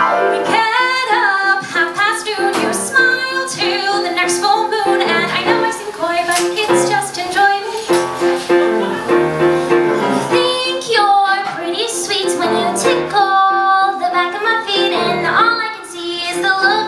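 Women singing a song with live piano accompaniment.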